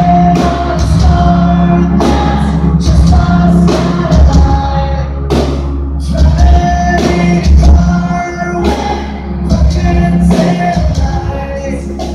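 Live rock band playing loud with a male lead singer, heavy bass and drums, heard from the crowd in a large concert hall.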